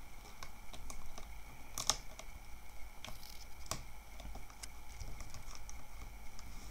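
Light, scattered clicks and taps of hands handling a thin laptop LCD panel, pulling back the tape along its edge and shifting the panel on a work mat, with sharper clicks about two seconds in and again near four seconds.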